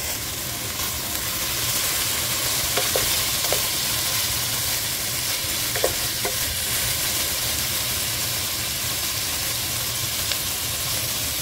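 Onions, garlic and chopped tomatoes sizzling as they sauté in a stainless steel pan: a steady frying hiss that grows a little louder about two seconds in, with a few faint clicks.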